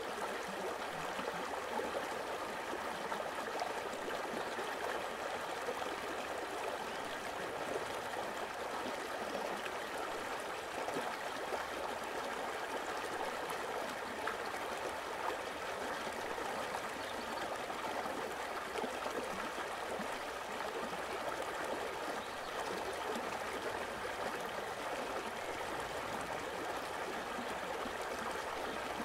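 Steady running water, like a flowing stream, continuous and even with no distinct events.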